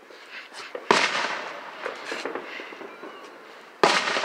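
Two aerial firework shells bursting, one about a second in and one near the end, each a sharp boom that trails off in an echo.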